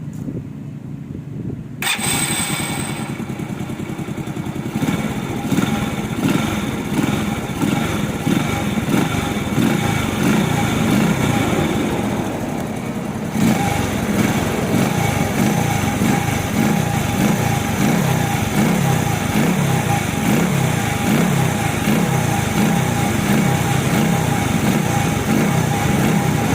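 Small motorcycle engine running steadily, with an even pulsing beat. It gets suddenly louder and fuller about two seconds in.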